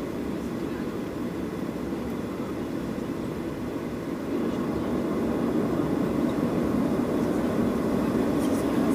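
Cabin noise inside a Boeing 737-700 with CFM56-7B engines: a steady engine and airflow rumble that grows louder about four seconds in.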